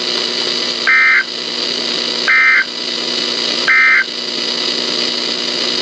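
Emergency Alert System end-of-message (EOM) data code: three short, identical warbling data bursts about a second and a half apart, over steady radio hiss, signalling that the severe thunderstorm warning broadcast has ended.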